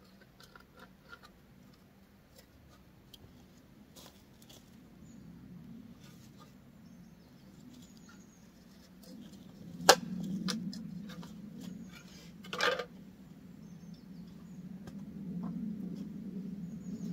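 Small objects being handled and set down on a wooden chopping block: light scattered clicks, a sharp knock about ten seconds in, and a short scrape a few seconds later. Underneath runs a low steady rumble that grows louder in the second half.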